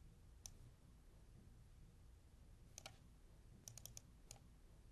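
Faint clicks of a computer mouse over a near-silent room tone: a single click about half a second in, a pair near three seconds, then a quick run of four and one more click shortly after.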